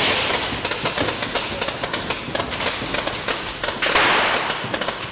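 Commotion of a staged fight scene on a film set: a noisy din of extras scuffling, with rapid sharp pops and knocks throughout and a louder surge about four seconds in.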